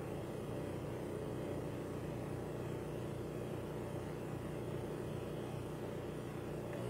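Analog synthesizer putting out a low, rumbling drone with a rapid, even pulsing flutter.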